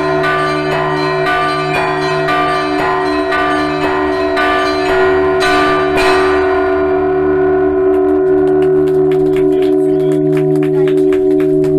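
Orthodox church bells ringing: deep bells hum steadily under a regular run of smaller-bell strikes, about three a second. Past the middle the bright high ringing fades and the small-bell strikes become quicker and denser.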